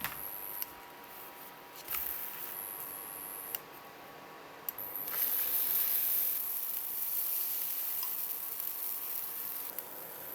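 A few light clicks and knocks of kitchen utensils, then from about five seconds in a steady high hiss like food sizzling in a frying pan.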